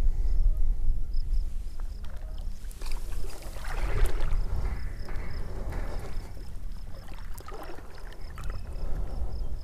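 Water splashing and sloshing in shallow water, loudest in the middle, most likely from a carp fighting on a tenkara line, with low wind rumble on the microphone throughout and faint, evenly repeating high insect chirps.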